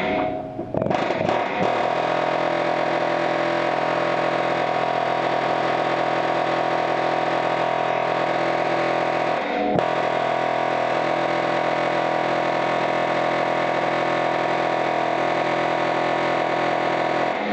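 Snap-On 3050 heavy-duty pneumatic air hammer with a pointed bit hammering continuously, a really loud, steady buzz, driving a rusted, broken crossmember bolt and its captured nut up into the frame. It starts in a few short bursts, then runs steadily, dropping out for a moment about halfway through.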